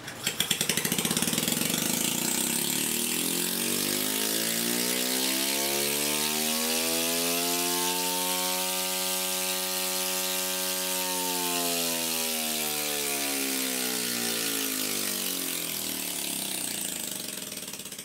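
Scroll compressor running with its shell cut open, starting up abruptly with a rattly mechanical clatter over a hum. The hum's pitch slowly climbs to its highest around the middle, then sinks, and the compressor winds down and stops near the end.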